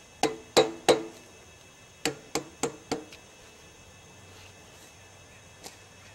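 Hammer blows with a short ringing tone, at a log in a homemade steel sawmill frame: three quick strikes near the start, then four more evenly spaced strikes about two seconds in.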